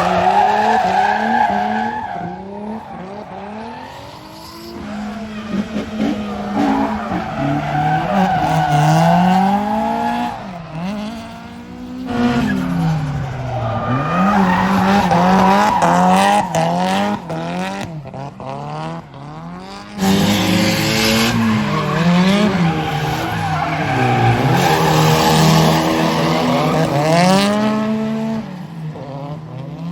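Drift cars sliding under throttle: engines revving up and down in quick, repeated swings over the screech of tires. The sound changes abruptly about twelve and twenty seconds in, as one pass gives way to another.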